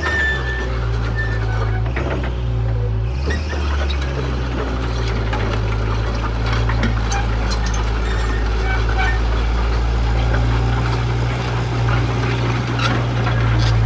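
JCB JS130 tracked excavator's diesel engine running steadily under hydraulic load while the upper structure slews round, its low note shifting briefly about two seconds in. Light clicks and knocks from the machine are scattered through it.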